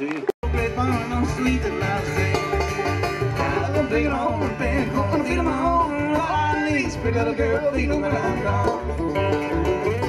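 Live bluegrass band playing: banjo picking over acoustic guitar and a plucked upright bass keeping a steady beat, after a momentary gap just after the start.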